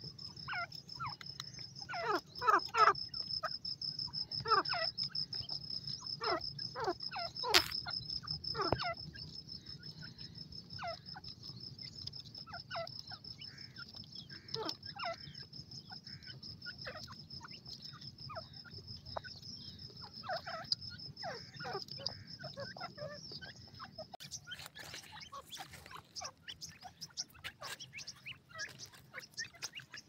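Grey francolins calling: a rapid scatter of short, falling calls, loudest and most frequent in the first third. Under them runs a steady high insect trill that stops about two-thirds of the way through, after which a rustling noise takes over; one sharp click sounds about a quarter of the way in.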